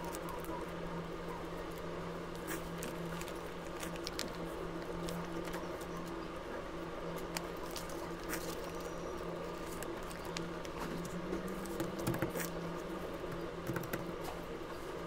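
Sheets of paper rustling and tapping as small hands shift and smooth them on a desk, with scattered light clicks and scrapes over a steady low hum.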